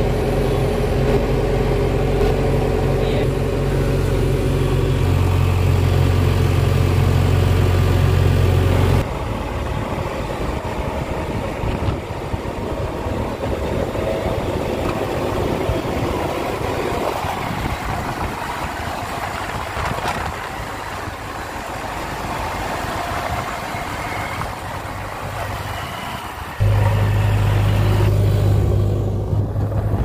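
JCB 3DX backhoe loader's diesel engine running steadily as the machine drives, a low, even hum. About nine seconds in the sound changes abruptly to a rougher, noisier engine and tyre sound, and the low steady hum comes back near the end.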